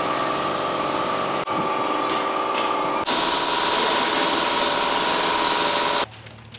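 Gravity-feed paint spray gun hissing steadily as compressed air atomises paint, with a steady whine through the hiss. It breaks off for an instant about one and a half seconds in, comes back louder about three seconds in, and stops suddenly near the end.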